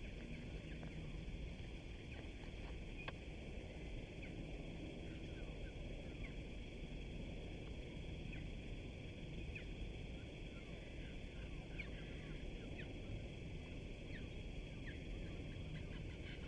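Many short, high chirps from small birds, scattered throughout, over a steady high hiss and a low rumble of outdoor background.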